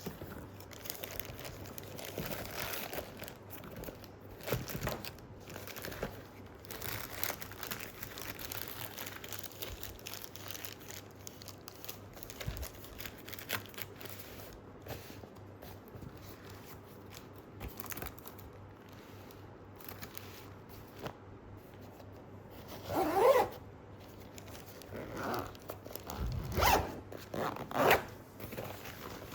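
Ripstop Robic nylon shoe bag being handled: soft fabric rustling and scraping, with the bag's zipper run several times, loudest about three-quarters of the way in and again a few times near the end.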